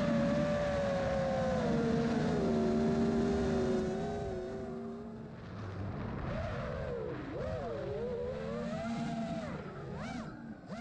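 Armattan Rooster 5-inch FPV quadcopter's brushless motors and tri-blade props whining, the pitch sinking steadily for the first few seconds, then dipping and swinging up and down with throttle. It grows fainter toward the end.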